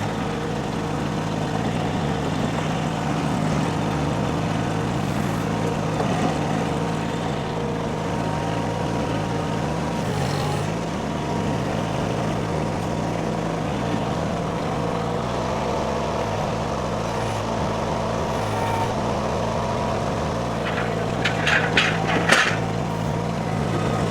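Derette V1000 mini skid steer's engine running steadily under work, with a few sharp clanks near the end.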